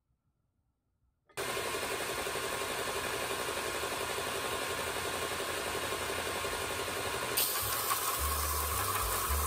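A power tool for grinding metal starts about a second in and runs steadily, grinding or polishing the battered, mushroomed metal of an old tool. About six seconds later it gets brighter and higher, and a deep pulsing sound joins near the end.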